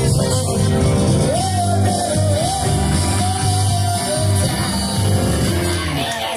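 Live band playing an upbeat R&B/soul number, with a steady bass line under guitar and horns, and singing. A wavering melody line carries through the middle.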